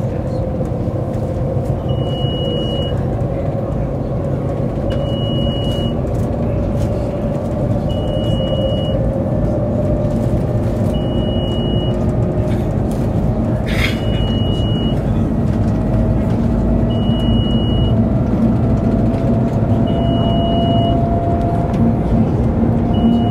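Cabin noise of the Shanghai Maglev train accelerating at around 150 to 200 km/h: a steady rumble with a hum that slowly rises in pitch as the train gathers speed. A short high beep repeats about every three seconds.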